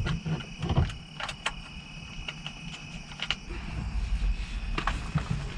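Scattered light clicks, knocks and rattles of parts being handled during work on a car's steering column, over a faint steady high hum that stops about three seconds in.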